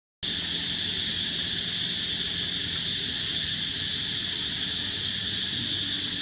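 Steady, high-pitched chorus of insects droning without a break, with a faint low hum beneath; it starts just after a brief dropout at the very beginning.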